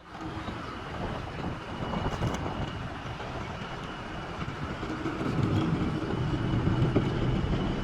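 Heavy earth-moving machinery running, a steady engine rumble that grows louder about five seconds in.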